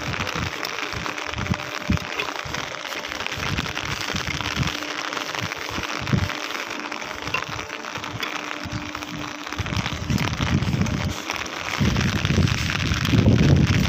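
Steady rain hissing on wet pavement, with low thumps and a rumble on the microphone that grow louder in the last few seconds.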